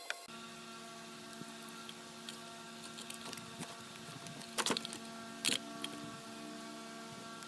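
A steady mechanical hum that starts abruptly just after the beginning, with scattered small clicks and two louder knocks about halfway through.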